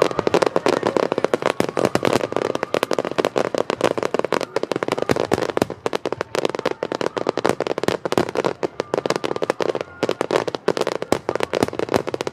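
Starmine fireworks barrage: shells firing and bursting in rapid succession, a dense run of bangs and crackles several to the second with no letup.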